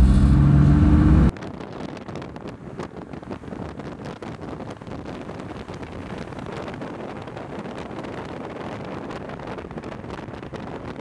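A car on the move in city traffic. For about the first second there is a loud, steady low engine drone from inside the open cabin, then the sound drops suddenly to a quieter, even road and traffic noise with faint crackles, as heard from outside the car.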